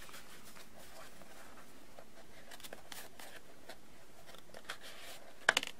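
Faint rustling and light scraping of a cardboard knife box being turned over and handled, with one sharp tap near the end.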